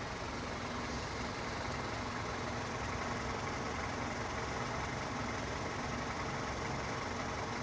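A car engine idling steadily, a constant hum with no changes in level.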